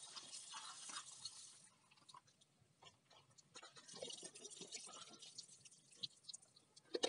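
Faint splashing and trickling of water poured over lead-acid battery filler caps to rinse off battery acid, in two spells (at the start and again about halfway through), with small knocks in between.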